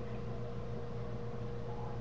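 Steady low hum with an even hiss underneath, with no distinct event.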